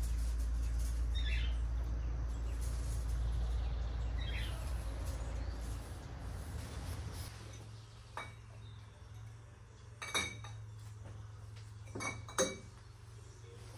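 Glass cachaça bottles clinking against each other as they are handled on wooden shelves: four short, sharp clinks in the second half. Before that, a steady low rumble with a few brief bird chirps.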